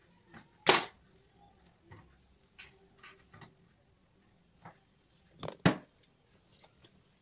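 Scattered short clicks and knocks of handling, the loudest about a second in and a close pair of sharp knocks at about five and a half seconds as the phone is picked up. A faint steady high whine runs underneath.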